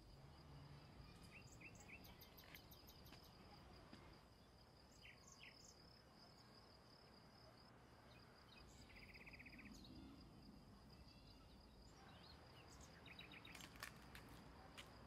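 Faint outdoor ambience: a steady high-pitched insect drone that breaks off briefly about eight seconds in, with scattered short bird chirps over a low background hum.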